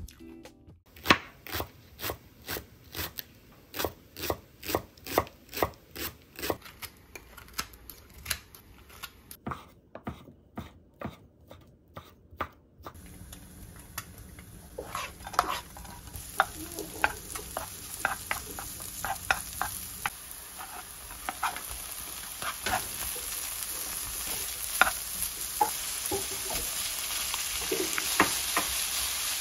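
A knife chopping on a cutting board in steady strokes, about two a second, for roughly the first half; then oil sizzling in a nonstick wok, the sizzle growing as bacon and sliced green onion fry, with the clicks and scrapes of a spatula stirring.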